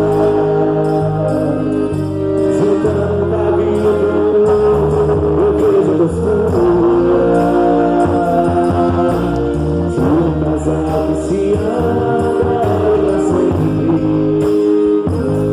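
Loud music for a quadrilha dance, with guitar and a singing voice.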